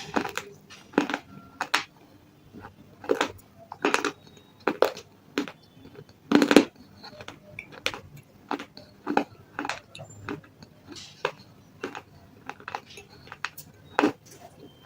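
Close-miked crunching of chips of red 'sale stone' (a soft clay-like stone) between the teeth. It comes as sharp, irregular crunches, a dozen or so, with a few much louder bites.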